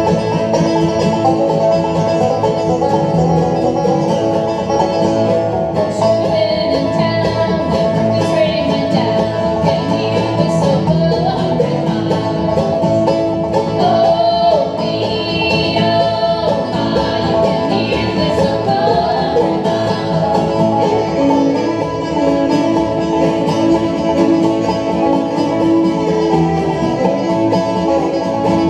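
Acoustic bluegrass band playing live: five-string banjo, acoustic guitar, fiddle, mandolin and upright bass.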